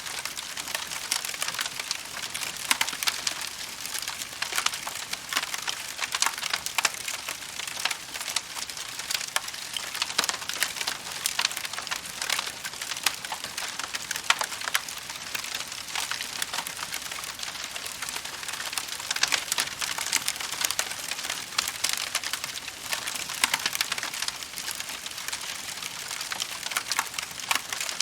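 Wood fire crackling: a dense, steady stream of small snaps and pops over a soft hiss, with a few louder pops scattered through.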